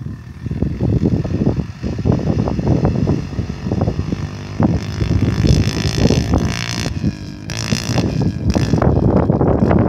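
Wind buffeting the microphone in uneven gusts, with a brighter hiss swelling in about halfway through and again near the end.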